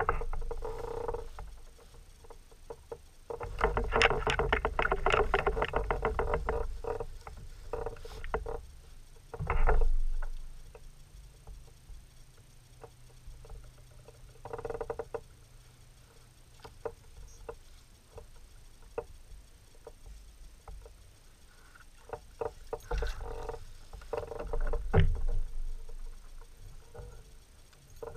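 An angler in a kayak reels in and lands a bass: a few seconds of rapid clicking from the fishing reel, then scattered knocks and rattles against the kayak, with louder bumps or splashes near the end as the fish comes aboard.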